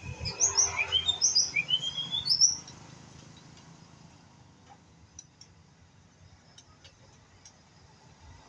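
White-rumped shama song: a quick run of loud rising, slurred whistled notes for about two and a half seconds, then only a few faint chips.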